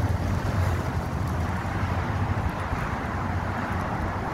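Steady low rumbling background noise outdoors, without any distinct events.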